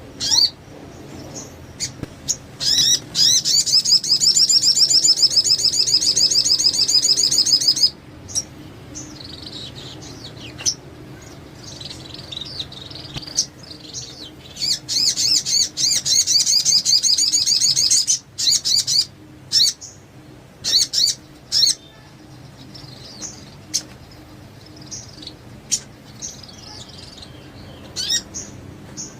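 A sogon singing: two long, fast, high-pitched trilling phrases, one starting about three seconds in and another midway, with short chirps and calls between and after them.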